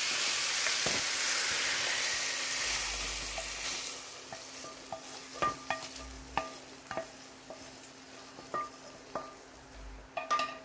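Sizzling hiss of hot curry gravy and chicken for the first few seconds, fading, then a spatula scraping and tapping against the frying pan about ten times as the cooked chicken pieces are scraped out into the pot of gravy.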